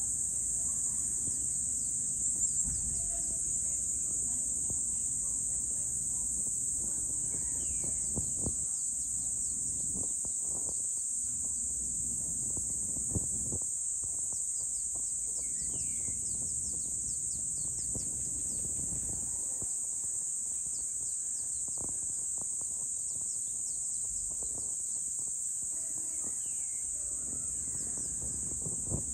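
Evening insect chorus: a steady high-pitched buzzing that does not let up, with a few scattered bird chirps and a low background rumble.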